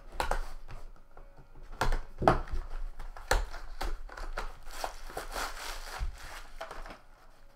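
A cardboard card box being opened and handled, with a few sharp knocks in the first half. Then a bubble-wrap pouch rustles and crinkles as it is drawn out of the box.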